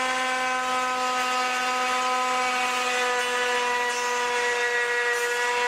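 Handheld electric wood router running at full speed as it cuts a rebate along the sides of a wooden tray: a steady high whine of several tones whose pitch sags slightly under the load.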